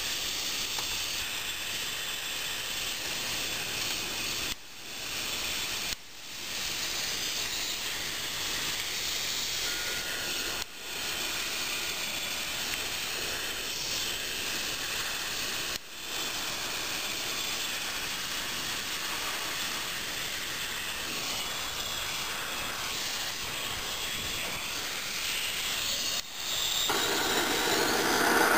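Hago siphon oil-burner nozzle hissing steadily as it sprays atomised oil mist, with the hiss dipping briefly several times. Near the end the mist lights and the sound turns louder and fuller as the flame catches.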